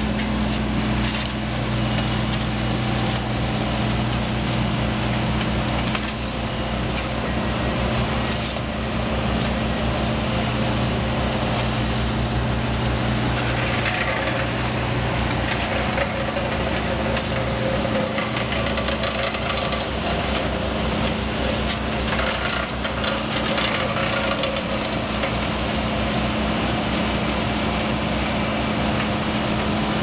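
Diesel engine of an asphalt paver running steadily at a constant speed, with a low hum, and some clattering and scraping in the middle stretch.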